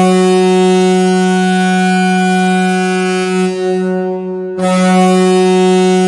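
Ice hockey arena goal horn sounding a deep, steady blast rich in overtones. It eases off a little past three seconds in, and a fresh full blast starts about four and a half seconds in.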